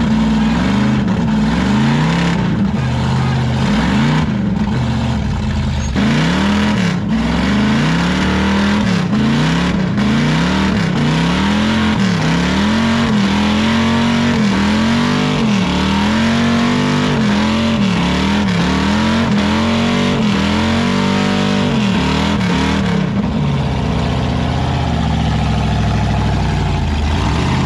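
Lifted Toyota 4Runner's engine revved again and again, its pitch rising and falling about once a second, as the truck spins its oversized tyres trying to climb a steep dirt ledge. Near the end it settles to a steadier, lower note.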